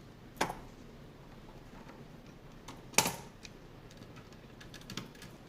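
Small hard computer parts being handled and fitted: a few sharp clicks and knocks, the loudest about three seconds in, with faint ticks between.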